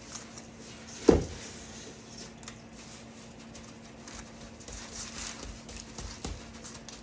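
Gloved hands packing and patting a wet kosher-salt paste over a whole red snapper on a sheet pan, soft gritty crunching and patting, with one loud thump about a second in and a steady low hum underneath.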